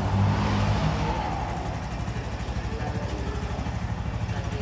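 Honda Biz 125's single-cylinder engine idling with a steady, fast low putter, a little louder in the first second.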